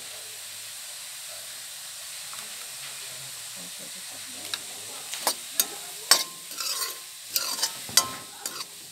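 Beef tripe frying in a metal wok with a steady sizzle. About halfway in, a steel spoon starts scraping and clinking against the wok as the tripe is stirred, in a string of sharp strokes.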